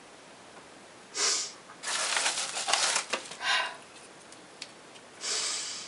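A woman sniffling and drawing shaky breaths while crying: several sniffs starting about a second in, with a few light clicks in between.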